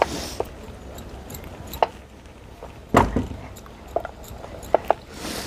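Wooden rolling pin knocking and rolling on a small round board while mathri dough is rolled out: a string of irregular sharp knocks and clicks, the loudest, with a dull thump, about three seconds in.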